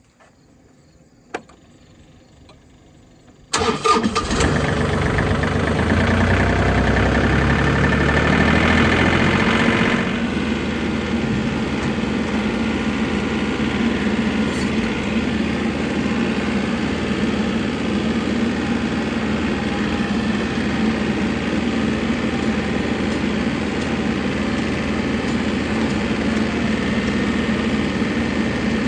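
An engine starts about three and a half seconds in, runs a little higher for several seconds, then settles into a steady run.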